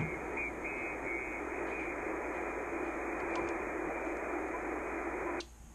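Steady shortwave static hissing from an Icom transceiver's speaker, tuned to the 20-meter band in upper sideband, with no station answering. It cuts off sharply about five seconds in.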